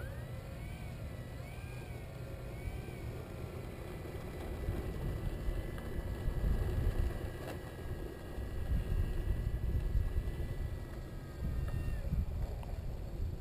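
Electric motor and propeller of a Dynam Waco RC biplane whining at low throttle on the runway, the pitch wavering up and down with throttle changes for the first few seconds, then holding steady before dropping away near the end. A low rumble of wind on the microphone runs underneath.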